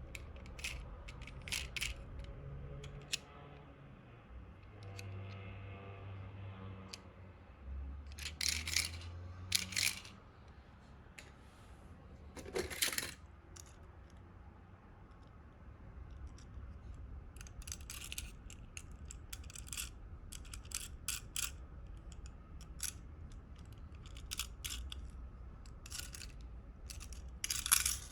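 Small die-cast toy cars clicking and clinking against each other as they are handled and sorted in a box, in scattered taps with a few short clattering bursts.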